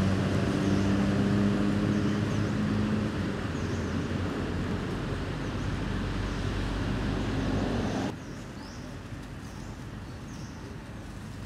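A motor engine running nearby, a steady low hum that dies away about three seconds in. The louder background then cuts off abruptly about eight seconds in to quieter outdoor ambience with faint high bird chirps.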